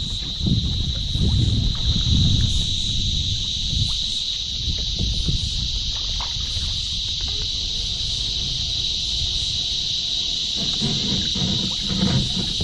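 A steady, high-pitched buzzing of insects that does not let up. It is broken by low knocks and thumps of a fish being handled on a plastic kayak, about half a second in and again near the end.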